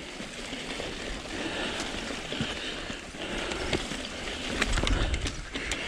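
Mountain bike rolling along a dirt singletrack: steady tyre and wind noise on the mic, with a few sharp clicks and rattles from the bike over bumps and a low buffeting rumble near the end.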